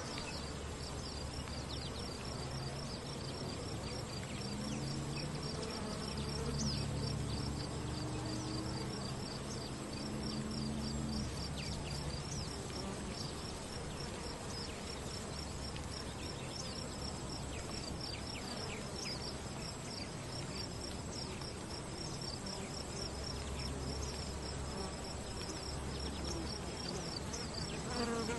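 Outdoor ambience: a steady, fast-repeating high chirring over a low hum, with a faint low drone of a few pitches coming and going in the first half.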